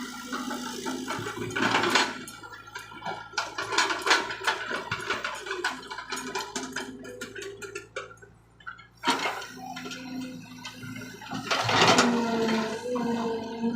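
An excavator working: its engine runs steadily, with the pitch shifting under load near the end, over repeated clattering and rushing of soil and stones.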